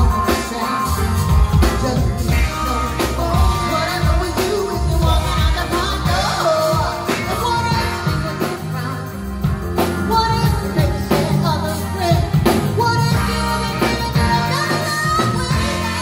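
Live soul band playing, with a woman singing lead over drums, bass, electric guitar and keyboards, a tambourine shaken along to the steady beat.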